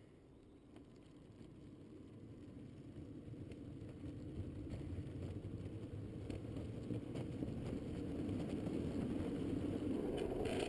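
Street luge rolling down an asphalt road: a low rumble of the wheels on the tarmac, with rushing air, that starts a couple of seconds in and grows steadily louder as the luge gains speed.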